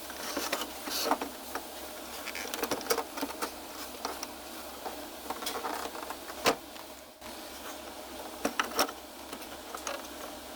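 Irregular small clicks and knocks of a plastic projection-TV replacement lamp module being handled and set into its housing, with a sharper knock about six and a half seconds in, over a steady low hum.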